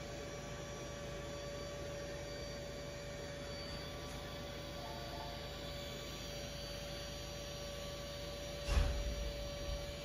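Samsung Jet Bot AI+ robot vacuum running while it cleans the carpet, a steady hum with one constant tone. A brief thump near the end.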